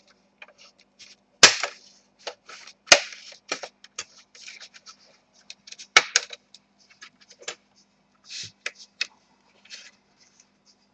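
Plastic latches of an Asus X54H laptop's palmrest snapping loose as its edge is pried up from the base: irregular sharp clicks and snaps with small ticks between, the loudest about a second and a half, three and six seconds in.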